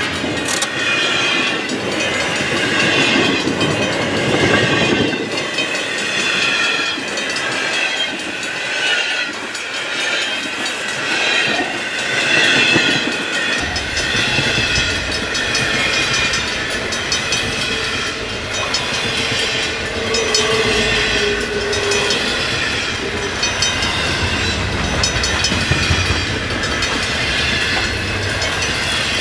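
CN intermodal double-stack train's cars rolling past: a continuous rumble and rattle of wheels on rail, with high metallic squealing that wavers throughout and a heavier low rumble from about halfway through.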